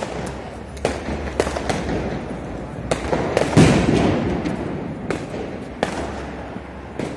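Diwali firecrackers going off all around: about ten sharp bangs at irregular intervals over a constant crackle, with the loudest, deepest boom a little past halfway.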